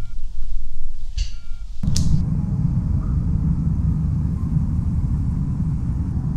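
Two short electronic beeps from a bomb's timer over a low hum, with light flicks of playing cards being dealt. Just before two seconds in, a swish leads into a loud, steady low rumble.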